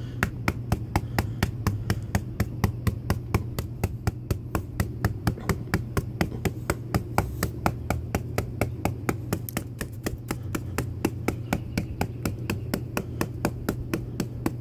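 Stiff-bristled brush smacked rapidly and repeatedly against fresh lime mortar joints in brickwork, about four to five sharp strikes a second. The striking works the partly set mortar, pulling it out to a textured, exposed finish so that it blends with the old mortar.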